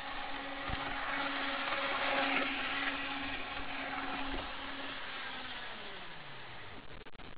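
Small electric motor of an HO scale Brilliner interurban trolley model whining as the car runs at full speed on its track. The whine swells as the car passes close, loudest about two to three seconds in, then fades as it runs away around the curve.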